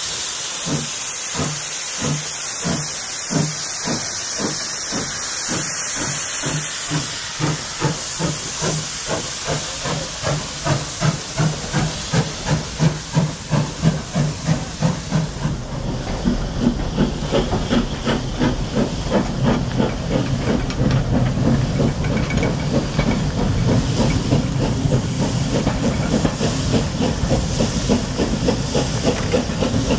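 LB&SCR E4 0-6-2 tank engine No. 473 pulling away with its train. At first there is a hiss of escaping steam under slow chuffs from its exhaust, and the chuffs quicken as it gathers speed. After about a quarter of a minute the coaches rumble past on the rails.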